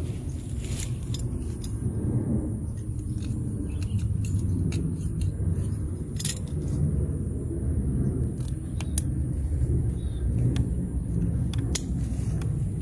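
Steady low rumble on the microphone, with scattered sharp clicks and a faint steady high whine.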